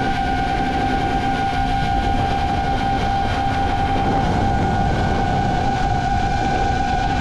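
FPV racing drone's motors and propellers whining at a steady pitch, with wind rushing over the onboard camera's microphone.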